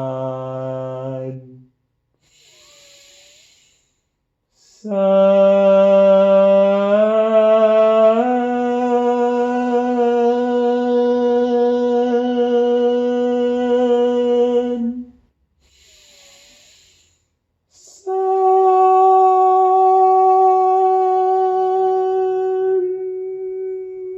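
A voice toning long, held 'sun' chants for sound healing: three sustained notes, each taken after an audible in-breath. The long middle note steps up in pitch twice, and the last note is higher and steady.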